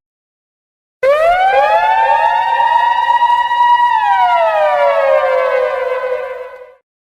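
Siren sound effect, starting about a second in: one slow rise in pitch, a held tone, then a slow fall that stops shortly before the end, layered with overlapping echoing copies.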